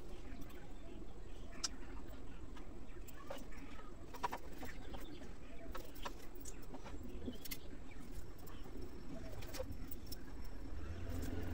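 Birds cooing steadily in the background, with scattered small clicks and scrapes of hilsa fish being cut on a boti blade.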